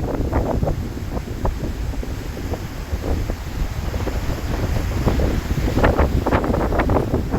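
Cyclone wind buffeting the microphone in a constant low rumble with irregular gusts, which are strongest about six seconds in.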